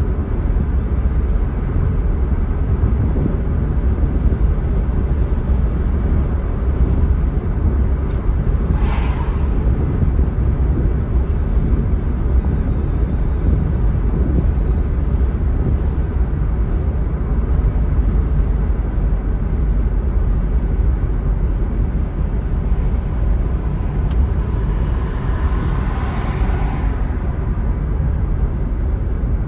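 Car driving steadily along a city road: a constant low rumble of road and engine noise, briefly louder about nine seconds in and again near the end.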